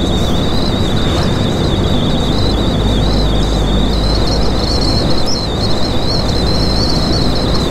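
Steady running noise of a MAN TGX semi-truck under way: engine drone and road rumble, with a thin high whine held throughout.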